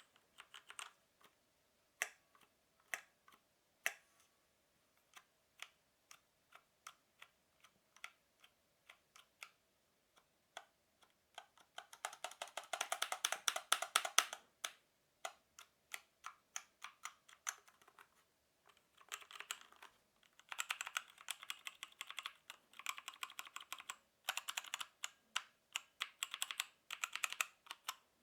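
Keys of a Havit 60% mechanical keyboard with brown switches being pressed. At first they come one at a time, about one a second. Then, from about halfway through, they come in quick runs of rapid presses, the loudest a little under halfway in.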